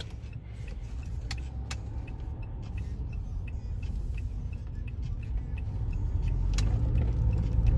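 Car road and engine noise heard from inside the cabin while driving: a steady low rumble that grows louder toward the end, with faint small ticks about twice a second and a few light clicks.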